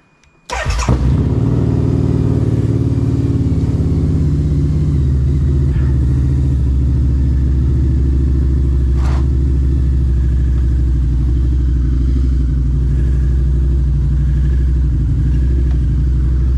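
Harley-Davidson V-twin engine starting about half a second in and then idling steadily.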